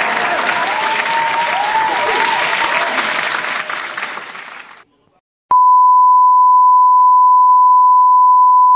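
A crowd applauding and cheering, with whoops rising and falling in pitch, fading out about five seconds in. After a short gap a single steady high beep tone starts and holds.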